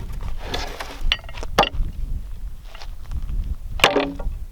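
A few sharp knocks and scrapes of an axe being handled and propped up in position as a target, over a steady low rumble.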